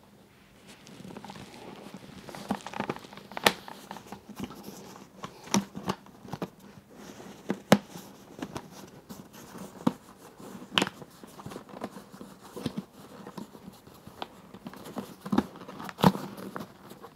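Hands working a fabric chin curtain into the plastic snap fasteners of a helmet's lower rim: soft fabric rustling with scattered sharp plastic clicks and taps, a few seconds apart, as the fasteners are pressed.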